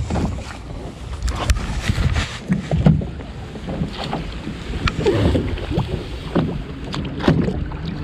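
Wind buffeting the microphone over water lapping against the side of a bass boat, with scattered knocks and rustles of handling.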